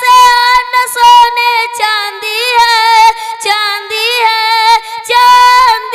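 A high-pitched voice singing a naat, an Urdu devotional poem, in long held notes with wavering, ornamented pitch and no instruments.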